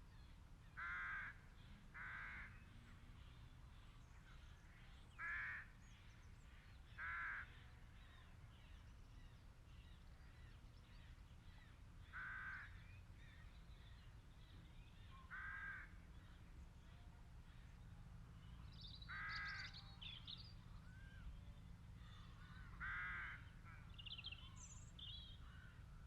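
Faint bird calls, a short pitched call repeated about eight times a few seconds apart, with a few higher chirps from another bird near the end.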